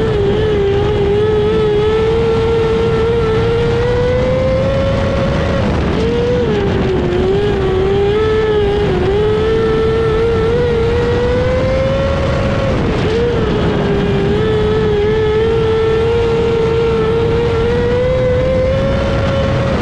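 Micro sprint car's 600cc motorcycle engine running hard on board during dirt-track laps. The engine pitch climbs slowly down each straight, then dips briefly as the throttle is lifted for the turns, about every seven seconds, over loud wind and tyre noise.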